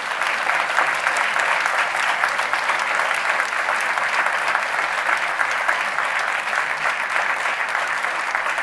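An audience applauding: many hands clapping in a dense, steady patter that holds throughout.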